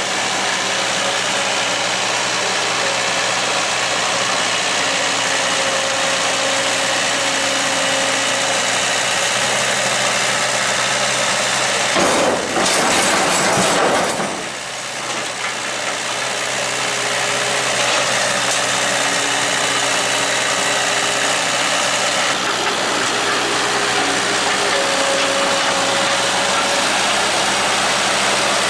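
Skid steer engine running steadily while it works a root grapple, with a loud clattering burst lasting about two seconds about twelve seconds in.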